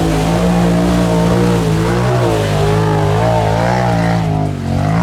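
Mud truck's big engine revving hard, its pitch rising and falling as the throttle is worked. Near the end it dips briefly, then revs back up.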